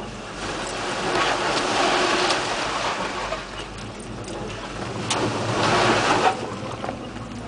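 Lifted GM four-wheel-drive pickup driving a dirt trail, heard from inside the cab: the engine drones steadily under two swells of rushing tyre and trail noise, with a few sharp knocks and rattles.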